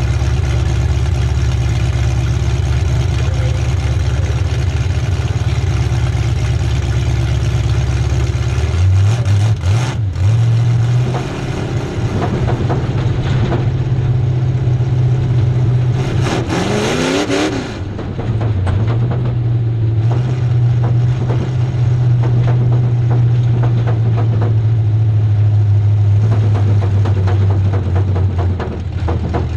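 Demolition derby car's engine with open exhaust stacks, heard from inside the gutted cabin, running at low revs as the car drives slowly. Its note shifts about a third of the way in, and it revs up briefly a little past halfway before settling back to a steady run.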